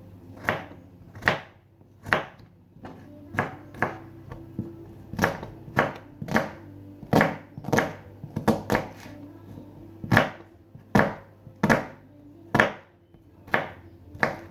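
Knife chopping food on a cutting board: sharp, separate strokes at an uneven pace of about one a second. Faint background music underneath.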